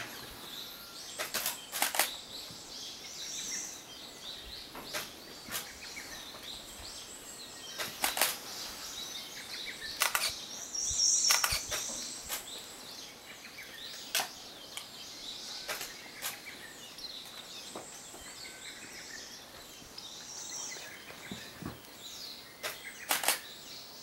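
Japanese white-eye of the Izu Islands race bathing in a shallow puddle: short splashes and wing-flutters in the water at irregular intervals. Thin, high bird calls come in now and then.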